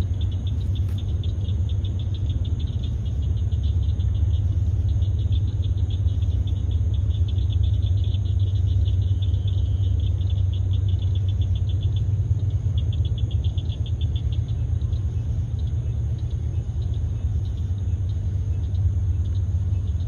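Night insects chirping in a fast, even pulse over a steady low rumble. The chirping breaks off briefly about twelve seconds in and fades out about two seconds later.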